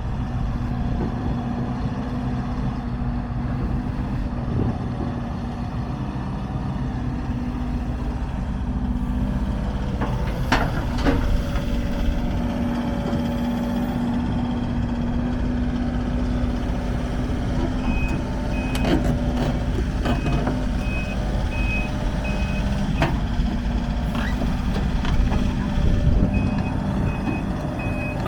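Link-Belt 145X3 excavator's Isuzu four-cylinder diesel engine running steadily. Its travel alarm beeps in two spells in the second half, about two beeps a second, and a few sharp metallic knocks come from the machine working.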